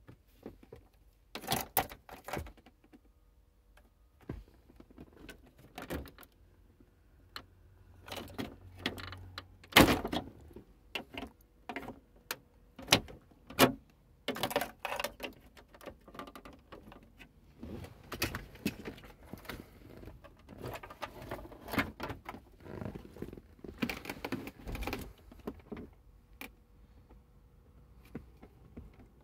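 Irregular plastic clicks, taps and rattles as the VW Touareg's climate control unit and its wiring connectors are handled and unplugged, with a screwdriver prying at a connector latch. The sharpest knock comes about ten seconds in.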